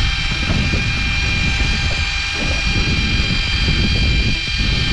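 Fishing boat's engine running at a steady drone, with a high whine, over a rough rumble of wind on the microphone.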